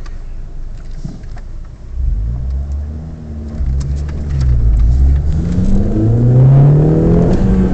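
Mini Cooper's 1.6-litre four-cylinder engine heard from inside the cabin, ticking over low for about two seconds, then revving. Its pitch dips once and then climbs, growing louder toward the end.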